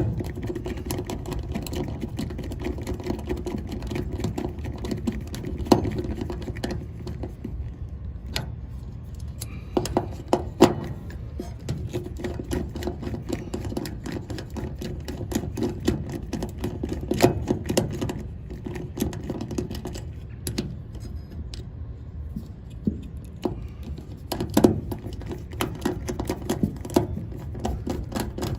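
Irregular clicks, taps and small knocks of hand tools and wire terminals while the fan motor's leads are connected back to the contactor. A steady low hum runs underneath.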